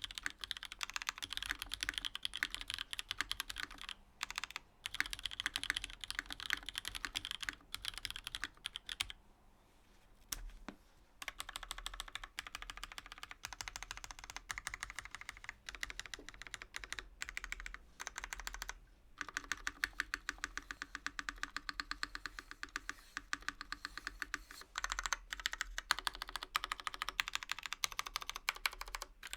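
Continuous fast typing on a top-mounted keyboard with lubed vintage Cherry MX Black linear switches, aluminium plate, polycarbonate case and GMK keycaps. A dense run of key clicks, with short pauses, the longest of about two seconds near the middle.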